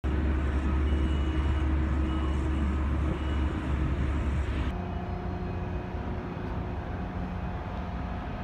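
Dockside ambience: a steady low rumble and machinery hum, with a few short high beeps in the first few seconds. About halfway the sound changes abruptly and becomes a little quieter, with a steady mid-pitched hum.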